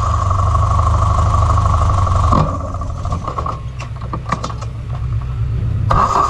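Formula Renault single-seater's engine idling in neutral, a steady low engine note. A higher steady note rides over it for the first two and a half seconds, drops away, and returns near the end, with a few short clicks in between.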